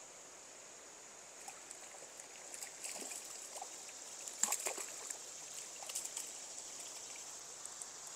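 River current running steadily, with a few short splashes about three, four and a half and six seconds in as a hooked rainbow trout is brought in.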